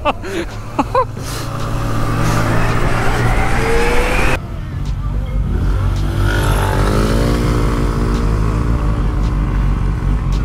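Zero FXE electric motorcycle accelerating hard, its motor whine rising steadily in pitch over heavy wind noise on the rider's microphone. After an abrupt cut about four seconds in, the wind continues with another rising tone.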